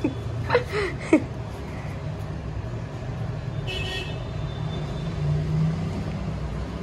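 Road traffic running steadily, with a short vehicle horn toot about four seconds in. A couple of brief sharp sounds come in the first second or so.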